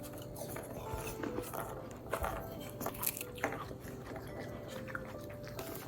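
Crisp apple being bitten and chewed: quiet, irregular crunches.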